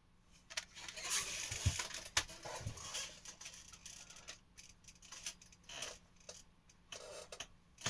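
CD cases being handled: rustling with a few sharp plastic clicks and knocks, busiest in the first three seconds, then fainter scattered ticks.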